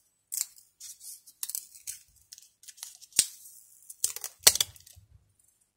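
A plastic matte film being peeled off an LCD's glass, giving scattered crackling and ticking. There is a sharp click about three seconds in and a louder burst of crackle a little past four seconds.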